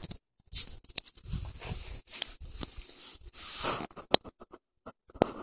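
A morkie (Maltese–Yorkshire terrier mix) digging under bed blankets: irregular scratching and rustling of the fabric in short bursts, with a few sharp clicks.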